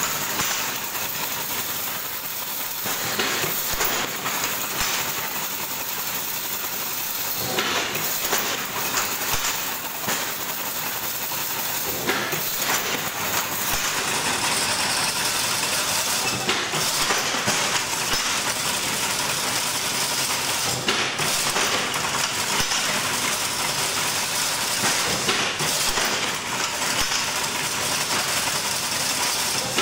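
Automatic chain-link fence weaving machine running: a steady metallic clatter and rattle as it spirals wire into diamond mesh, with a high-pitched hiss that grows stronger about halfway through.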